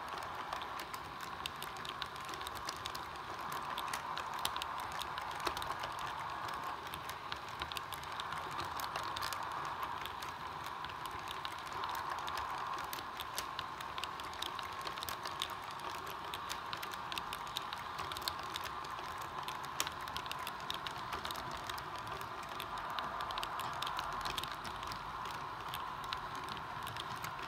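Model train freight cars rolling past on the track, their wheels clicking rapidly and unevenly over the rail joints, with a steady whine underneath.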